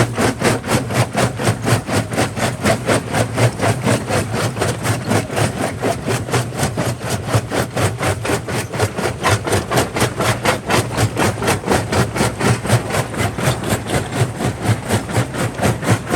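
Jaw crusher running and crushing rock: an even rhythmic pounding of about four strokes a second over a steady low hum.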